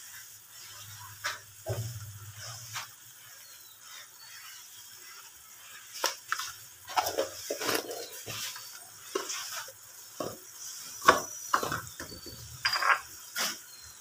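Spiced water boiling in a frying pan, with a spatula stirring and scattered sharp clicks and knocks against the pan. They come thickest in the second half, the loudest about eleven seconds in.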